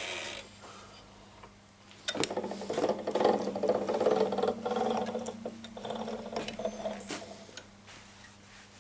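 A Rotwerk EDM 350DR 7x14 mini lathe's carriage moving along the bed, a mechanical gear whirr with small clicks that starts about two seconds in and dies away about seven seconds in.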